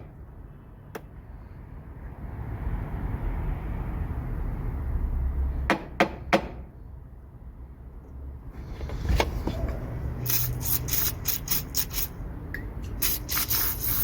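Small metal diesel injection pump parts being handled and cleaned: a sharp click near the start and three quick clicks about six seconds in, then a run of short hissing bursts from about nine seconds in.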